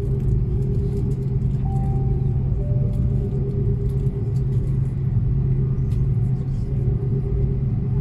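Steady low drone of an airliner cabin before takeoff: engine and air-conditioning hum with a steady tone in it.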